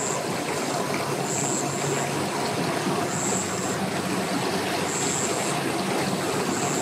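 Pickup truck engine running steadily as it slowly tows a boat on a trailer. A short high chirp repeats every couple of seconds.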